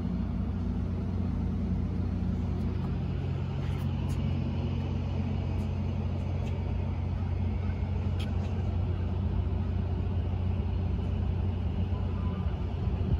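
Steady low mechanical hum of idling train equipment beside a stationary Caltrain Stadler KISS electric trainset, with a few faint clicks.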